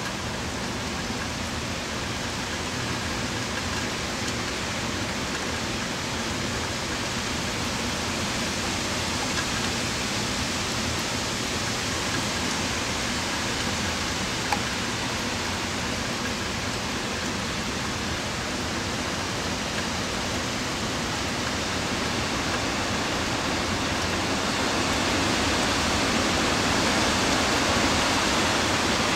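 Heavy rain and wind of a hurricane, a steady rushing hiss that grows a little louder near the end, with a single click about halfway through.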